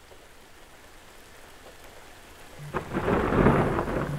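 Thunder: a faint steady hiss gives way, about two and a half seconds in, to a sudden loud crack that runs on as a crackling rumble.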